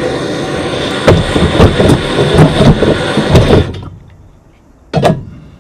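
Handheld gas torch hissing steadily as it heats a brass toilet flange to melt the solder holding it to a copper waste pipe, with several light hammer taps on the flange. The torch cuts out about four seconds in, and a single sharp knock follows near the end.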